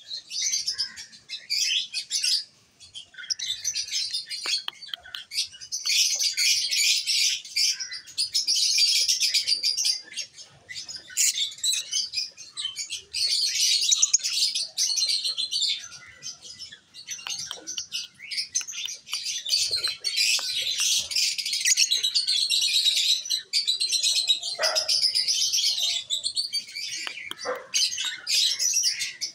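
A flock of African lovebirds, peach-faced and Fischer's, chattering with dense, high-pitched chirps, with a brief lull about two and a half seconds in.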